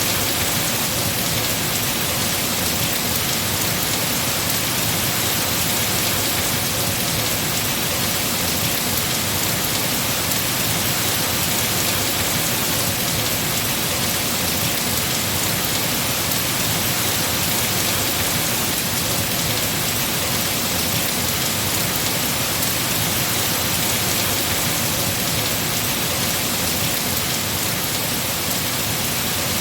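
Heavy, steady rain falling on trees and their leaves.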